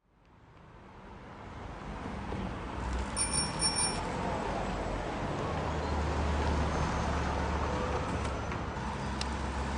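City street traffic noise fading in and then holding steady, with a bicycle bell ringing a few quick times about three seconds in.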